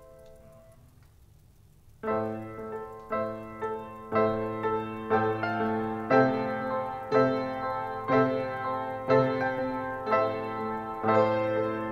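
Piano playing a slow, steady run of notes and chords, struck about once a second, beginning about two seconds in after a short near-silent pause.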